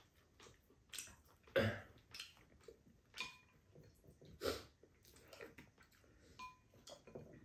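Quiet eating at a table: chewing and slurping mouth sounds, with chopsticks and a spoon clicking against ceramic bowls, some clicks ringing briefly. Short, separate sounds a few times a second, the loudest about a second and a half in.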